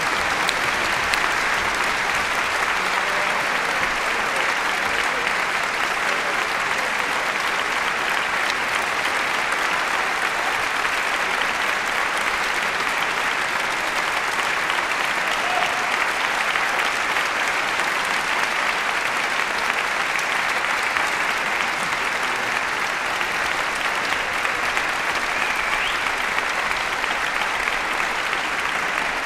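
Audience applauding steadily, a dense, even clapping that keeps up throughout.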